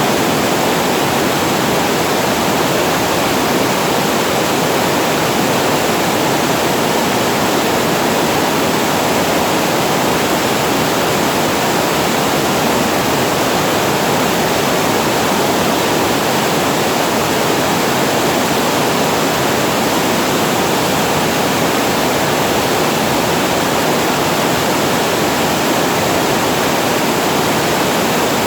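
Water pouring over a reservoir weir like a small waterfall: a steady, unchanging rush of falling water.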